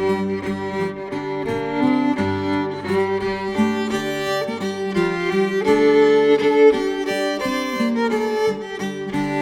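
Fiddle playing the tune in an instrumental break between verses of a traditional English folk song, with other instruments beneath.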